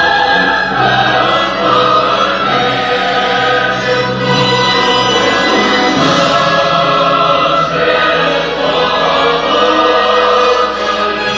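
Choral music: a choir singing sustained, overlapping notes, played loudly and without a break.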